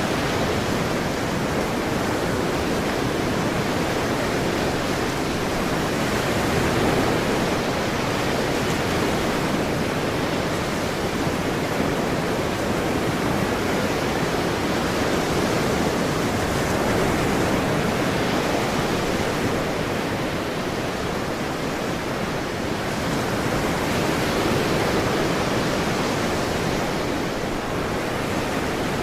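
Ocean surf: a steady wash of breaking waves that slowly swells and eases every several seconds.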